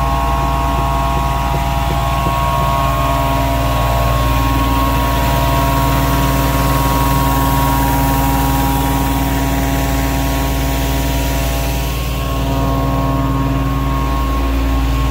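Van-mounted Phoenix carpet-cleaning truckmount running: a steady engine and vacuum-blower drone with constant whining tones on top.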